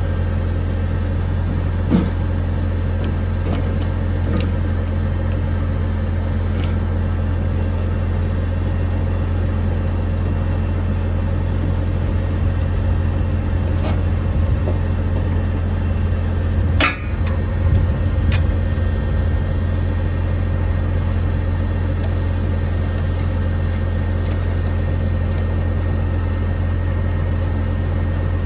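A steady low machine hum, like an engine idling, with a few sharp clicks and knocks scattered through it, the loudest about two-thirds of the way in, from hand work on the hydraulic cylinder's gland nut.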